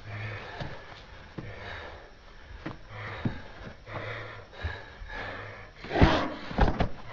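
A person breathing hard in heavy, rasping breaths, about one a second, with a louder gasp or groan about six seconds in.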